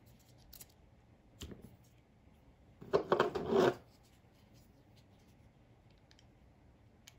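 Hard plastic GoPro camera and mount parts clicking and rattling as they are handled and fitted together: a couple of light clicks, then a dense clatter lasting about a second near the middle.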